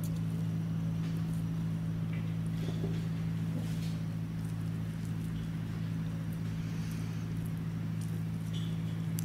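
A steady, even low hum with several tones layered together, like a running machine or electrical appliance, with a few faint rustles and ticks over it.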